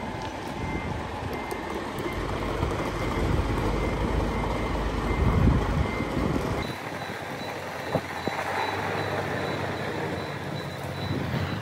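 Hino dump truck running at low speed as it manoeuvres through a tight turn, its warning alarm sounding a steady run of short high beeps over the engine.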